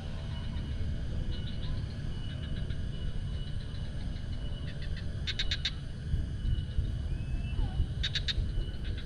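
Outdoor nature ambience: birds calling, with two short bursts of rapid chattering notes and a couple of brief whistled glides. Under them are a thin steady high tone and a constant low rumble.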